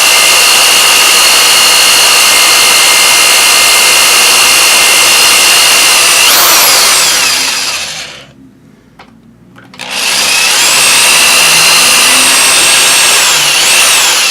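Power drill running in reverse with a large bit, melting its way through a plastic case: a steady high motor whine that rises and falls in pitch about six seconds in and stops around eight seconds. The drill starts again about two seconds later and runs for about four seconds more.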